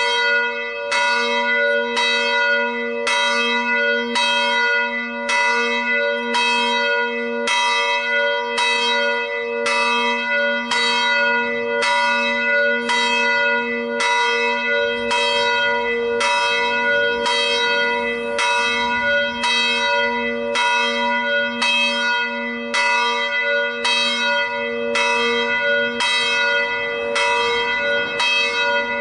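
A single bronze church bell cast by the Felczyński foundry, swung by its electric drive and ringing with an even, steady run of strokes, each ringing on into the next. The same deep hum and bright overtones repeat with every stroke: one bell of the three is being rung.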